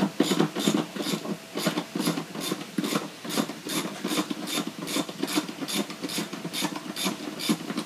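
Socket-wrench ratchet clicking in quick back-and-forth strokes, about three a second, loosening the bolts that hold the compressor to the base pan of a Trane heat pump condensing unit.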